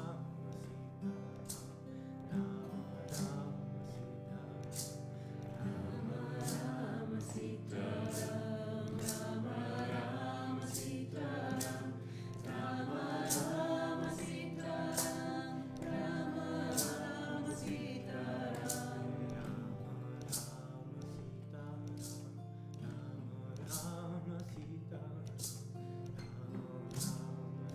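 A group sings a Hindu devotional kirtan chant over a steady held drone, with sharp percussion strikes keeping a regular beat. The voices swell and fall back in long phrases.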